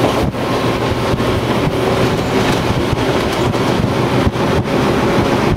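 Train running at speed, heard from inside the carriage: a loud, steady rumble of wheels and running gear with a faint low hum.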